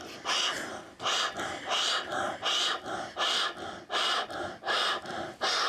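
A woman breathing hard and rhythmically through a steady run of quick, even breaths, about two a second. This is paced breathing to bear the pain of standing barefoot on a nail board.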